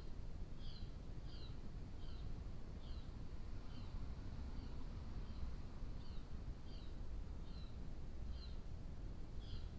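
An animal's high chirping call, a short two-part chirp repeated steadily about once every three-quarters of a second, over a steady low rumble.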